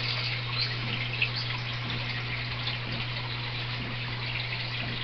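Steady running, trickling water from a small pump-driven indoor water feature, over a low steady hum.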